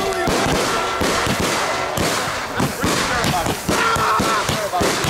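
Fireworks going off: a rapid, loud run of sharp bangs and cracks, several a second.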